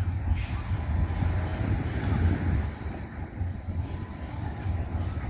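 Wind buffeting the microphone as an uneven low rumble, with a faint hiss of open-air beach ambience above it.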